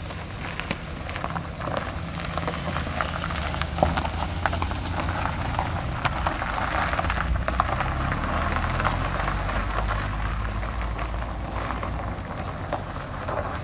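A car's engine running low and steady, under a dense crackle of gravel crunching.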